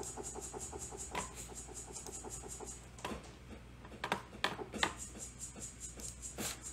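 Faint trap beat playing quietly: a rapid, even run of hi-hat ticks, several a second, that drops out for about two seconds in the middle and comes back. A few louder single clicks land through it, over a steady low hum.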